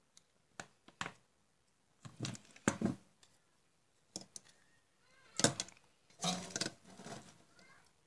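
Irregular clicks, knocks and rattles of a taken-apart compact fluorescent bulb's plastic housing and circuit board being handled. They come in short clusters, the loudest about two and a half seconds in and again about five and a half seconds in.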